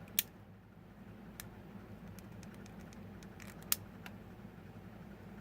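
Two sharp clicks and a few fainter ticks from handling the router's cleaned power switch on the bench, over a low steady hum.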